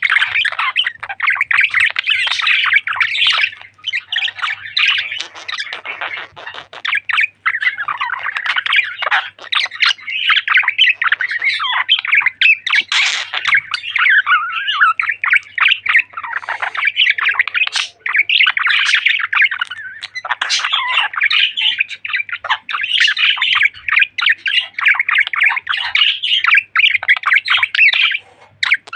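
A pair of budgerigars chattering and warbling, with a dense stream of chirps and squawks that breaks off briefly a few times.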